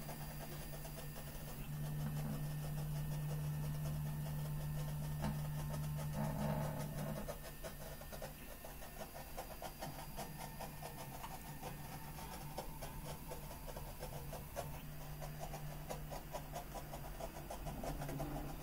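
Stepper motors of a Mostly Printed CNC sand table running, moving a magnet that drags a steel ball slowly through the sand at about 24 mm/s. They make a steady low hum with a fine fast buzz. The hum is louder from about two seconds in until about seven seconds in.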